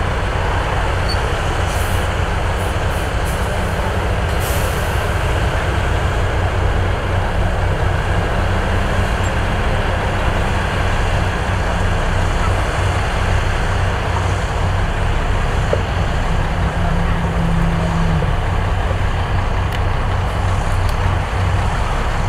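Heavy diesel construction machinery running steadily with a deep, loud drone, its pitch shifting briefly near the end. Short air hisses come a few times in the first seconds.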